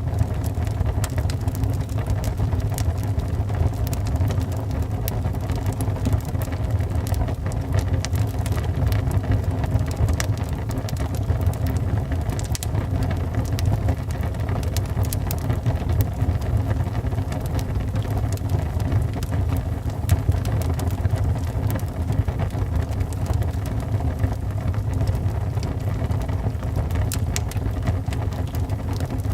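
Wood fire burning in a fireplace: a steady low rumble with frequent small crackles and pops of burning wood, one slightly louder pop about two-thirds of the way through.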